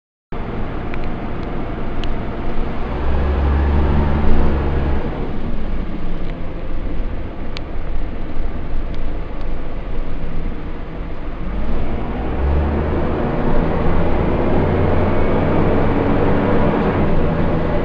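Dennis Dart SLF bus heard from inside the saloon: the diesel engine pulling with its note falling about five seconds in and rising again from about twelve seconds, over the steady roar of the engine cooling fan running.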